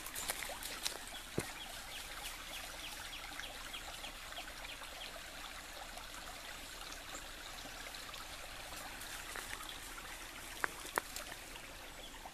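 Shallow creek trickling steadily over rocks. A faint run of quick ticks, about three a second, sits over it in the first half, and a few sharp clicks come near the end.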